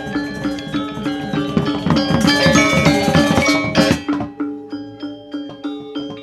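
Balinese gamelan: metallophones and drums struck in a fast, dense passage that grows louder, then breaks off suddenly about four seconds in to a sparser, quieter pattern of ringing strokes.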